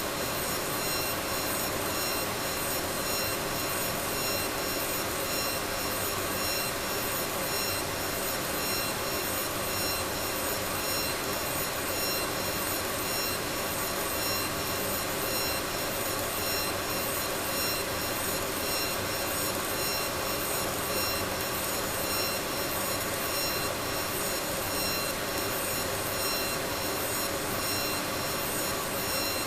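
Laser engraver running: a steady whirring noise with several constant high-pitched whining tones, unchanging throughout.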